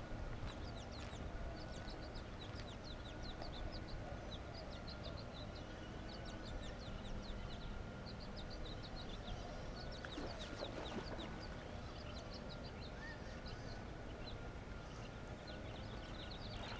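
Birds chirping in quick runs of short high notes, the runs coming again and again, over a steady low background rumble.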